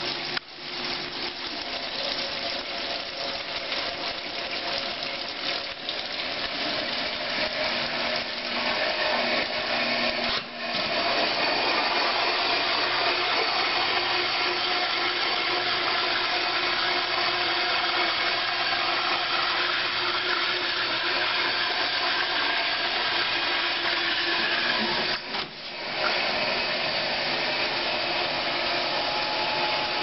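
KitchenAid KDA-5 portable top-loading dishwasher running: a steady rush of water over the whir of its motor, with brief dips about ten and twenty-five seconds in.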